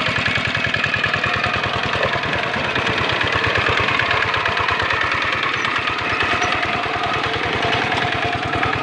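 Single-cylinder diesel engine of a two-wheel hand tractor running steadily under load as it drives its cage wheels and tiller through paddy mud, a fast, even thudding beat.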